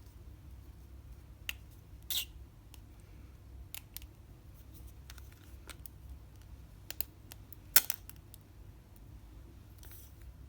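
Slime being handled: scattered sharp clicks and small pops, the loudest about three-quarters of the way through, over a faint low hum.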